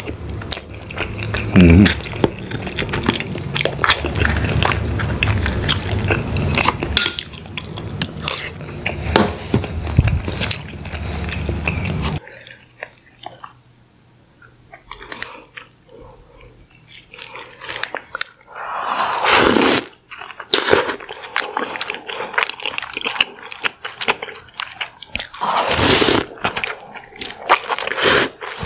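Close-miked mukbang eating sounds: wet chewing, smacking and crunching as sauced crab and prawn are eaten by hand. After an abrupt change about 12 s in, quieter sounds follow of king crab leg meat being pulled apart and eaten, with scattered clicks and a couple of louder bursts.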